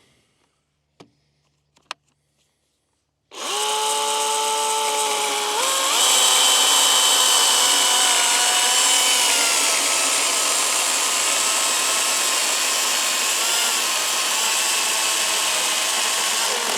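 DeWalt 60 V FlexVolt battery-powered chainsaw cutting through a 6x6 wooden post. After two faint clicks the electric motor starts about three seconds in with a steady whine, steps up in pitch shortly after, and runs on steadily through the cut.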